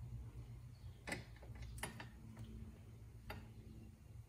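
A few separate light metallic clicks and taps of a hand tool working at the bolts of a rear brake caliper adapter bracket, over a faint low hum.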